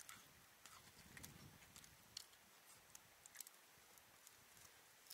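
Near silence: quiet outdoor air with a few faint, scattered clicks.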